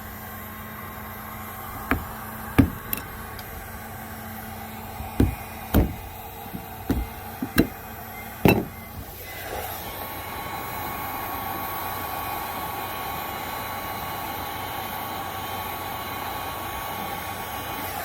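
Sharp knocks and taps on the hull, about seven in the first nine seconds, then a heat gun's blower running steadily through the rest.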